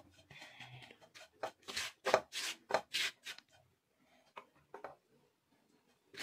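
Silicone spatula scraping and pushing a crumbly besan-and-ghee mixture around a nonstick pan as it roasts: a quick run of short scrapes for about three and a half seconds, then two faint ones.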